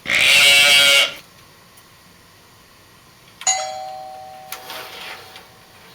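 A loud, harsh noise lasting about a second, then a single doorbell-like chime struck about three and a half seconds in, its two tones ringing and fading over about two seconds.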